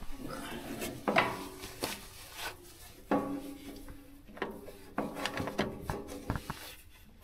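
Scattered knocks, scrapes and short metallic clinks from handling a truck's battery cables and terminals, some knocks ringing briefly.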